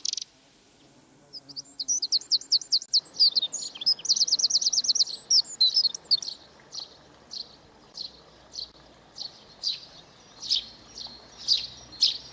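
Eurasian tree sparrow chirping: a fast chattering run of short high chirps begins about a second and a half in, then single chirps repeat about twice a second.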